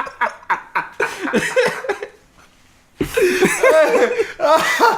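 Men laughing: quick, rhythmic bursts of laughter for about two seconds, a brief pause, then louder, longer laughter.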